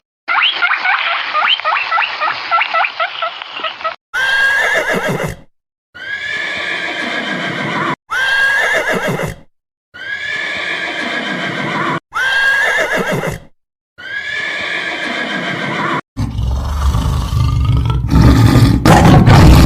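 A horse whinnying, heard six times in separate short takes with silent gaps between them. Before the whinnies comes about four seconds of rapid high squeaking, and a loud low rumble starts near the end.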